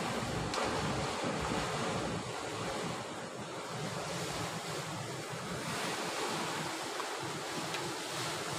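Sea waves washing and breaking against a rocky shore in a steady rush, with wind buffeting the microphone.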